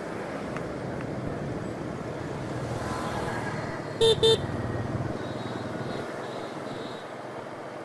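Motor scooter riding through street traffic: a steady engine and road noise, with a horn giving two short beeps about four seconds in, the loudest sound.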